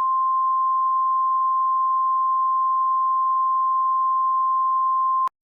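Emergency alert attention tone: a single steady electronic tone, held for about five seconds and cutting off suddenly near the end, signalling that an emergency bulletin follows.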